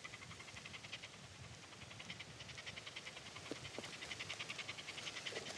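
Faint rapid trill of even pulses, about ten a second, from a calling insect, building in strength, with a couple of faint knocks near the middle.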